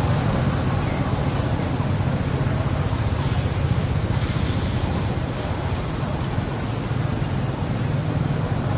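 Steady outdoor background noise: a continuous low rumble under a hiss, with a thin, steady high-pitched tone above it.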